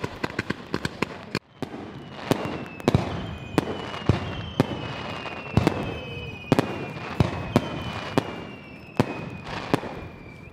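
Fireworks: a ground-level line of fireworks crackles rapidly, then aerial shells burst in a quick, irregular series of sharp bangs, about a dozen in all, with thin whistles that slide slightly down in pitch running under them.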